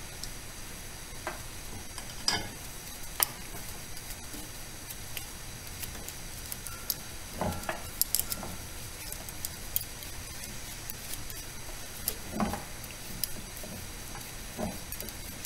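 Scattered light metal clicks and a few knocks from a folding hex-key tool working inside the cast-iron housing of a Bridgeport 8F power feed, over a steady hiss.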